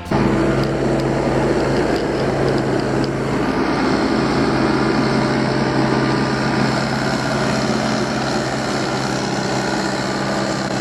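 Heavy construction machine's engine running steadily at a constant pitch, loud and unchanging.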